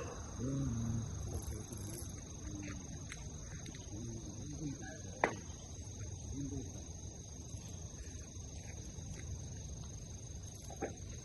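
Crickets trilling steadily on one high pitch, with a single sharp click about five seconds in.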